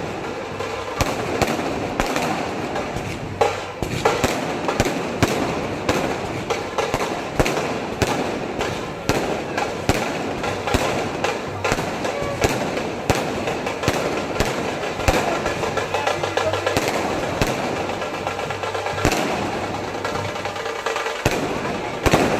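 Diwali fireworks and firecrackers going off: a dense, irregular run of sharp cracks and bangs, several a second, over a continuous crackling hiss.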